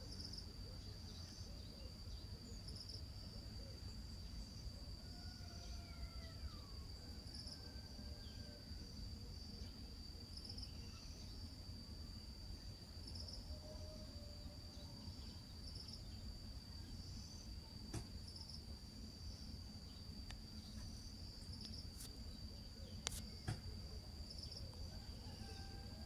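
Steady, high-pitched insect trill, faint, with a few soft bird calls and a low rumble beneath it. A few sharp clicks come in the last third.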